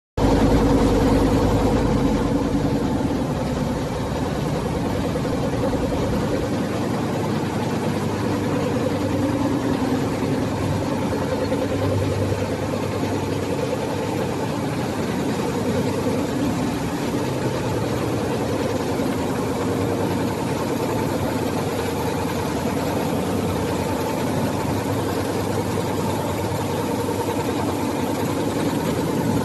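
Baby diaper production machine running: a steady mechanical hum with a dense, fast clatter of its moving parts, unbroken throughout.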